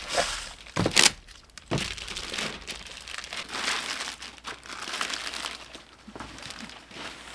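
Plastic and foam packaging wrap crinkling and rustling as a solar panel is pulled out of its cardboard box. A sharp knock about a second in is the loudest moment.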